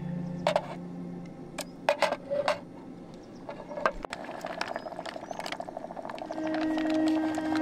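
A series of sharp clicks and knocks, as of gear being handled, between passages of soft background music that fades out about a second in and comes back near the end.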